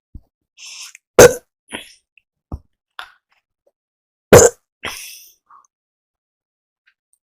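A person burping after drinking carbonated cola: two short, loud burps about three seconds apart, with breaths and small mouth clicks between them.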